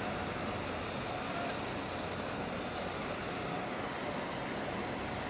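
Steady wind noise on the microphone over a low, steady engine hum.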